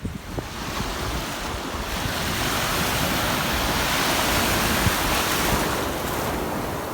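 Ocean surf: a wave washing in, its hiss swelling over a few seconds and then slowly fading, with wind rumbling on the microphone.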